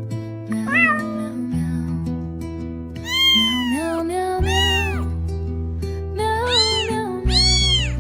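A cat meowing several times in short rising-and-falling calls, some in quick pairs, over background music of sustained low chords.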